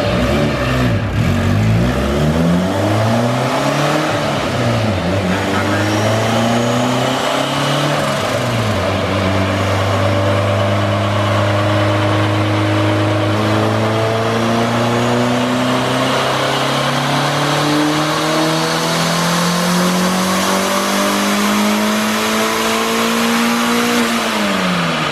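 Turbocharged car engine on a chassis dyno: revved up and down a few times, then a long, steady climb in revs under full load from about nine seconds in, cut off with a quick drop in revs near the end as the throttle is lifted.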